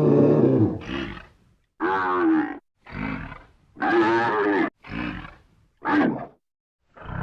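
A string of short buffalo bellows and moaning calls, about seven in a row, each lasting under a second. The calls sit back to back with abrupt silent gaps between them.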